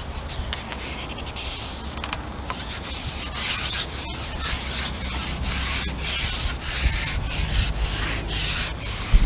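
Wind rumbling on the microphone, with repeated rubbing strokes close by that grow louder about three seconds in.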